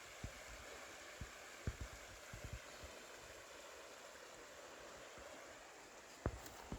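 Faint steady outdoor background noise, with a few soft low thuds scattered through it.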